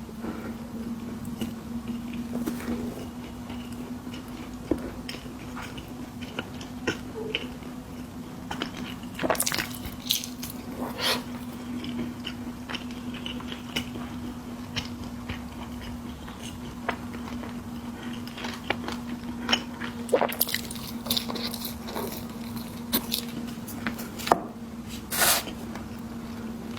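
Close-up eating sounds: biting and chewing snacks, with wet, squishy mouth sounds and many short clicks and smacks. A few louder bites come about a third of the way in and again near the end, over a steady low hum.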